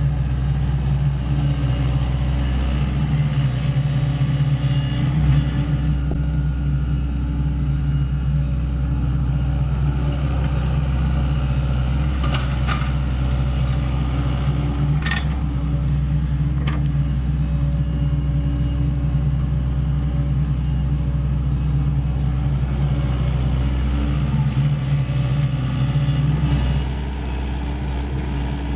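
Sany SY75 mini excavator's diesel engine running steadily under working load, with a few sharp knocks about halfway through. The engine note eases off slightly near the end.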